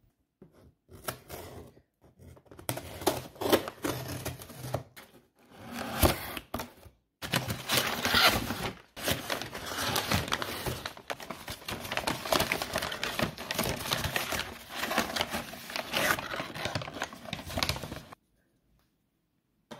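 Dense crinkling and clicking handling noises in several stretches broken by sudden gaps, stopping abruptly near the end.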